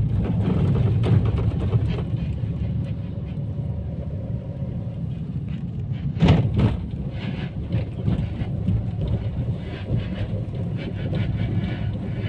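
Car cabin noise while driving: a steady low rumble of engine and road, with a brief louder noise about six seconds in.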